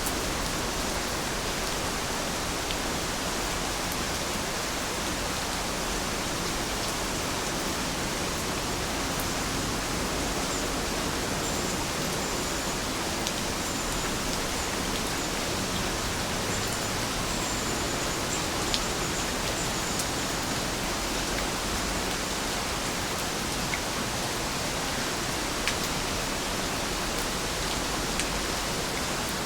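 Steady rain falling, an even hiss with no letup, with a few sharp drop ticks standing out here and there.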